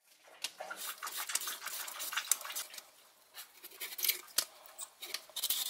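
Hand vegetable peeler scraping the skin off potato and courgette in quick, repeated strokes, with a short pause about halfway through.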